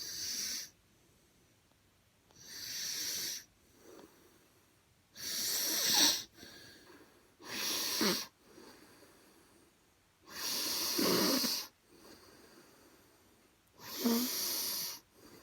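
A teenage boy snoring in his sleep: five loud breaths about every three seconds, each a hissy rasp, some with a low rattle in it.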